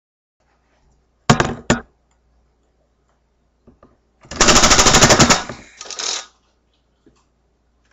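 Nerf Magstrike air-pressure dart blaster: two sharp pump strokes about a second in, then a rapid burst of shots lasting about a second, darts fired in quick succession as the pressurized air releases, emptying the clip and trailing off briefly.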